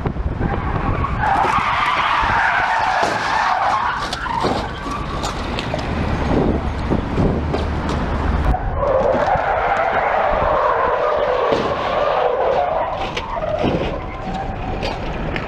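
Car tyres skidding across the road surface in two long spells of a few seconds each, about a second in and again about nine seconds in, over steady road and engine noise.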